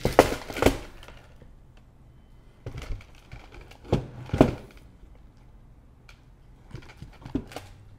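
Packaged chocolates and small gift boxes being set down into a gift chest: irregular knocks and thuds in small clusters, loudest near the start and about four seconds in.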